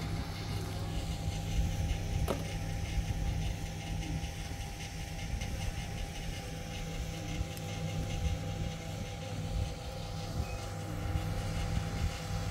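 An engine running steadily with a constant low hum, and a single sharp click about two seconds in.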